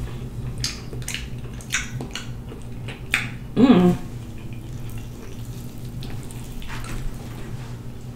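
Wet mouth smacking while eating sauce-coated food with the fingers: a string of short, sharp wet smacks and clicks, with a brief voiced hum about three and a half seconds in.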